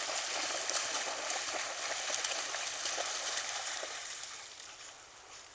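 Rustling and light scattered ticks of a large pack of dogs trotting through long grass, fading slightly near the end.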